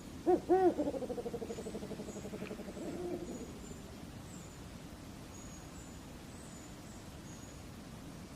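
Shelley's eagle-owl calling: two loud, short hoots that rise and fall in pitch, then a fast stuttering run of notes at the same pitch that fades out over a couple of seconds. Faint high chirps of small birds continue in the background.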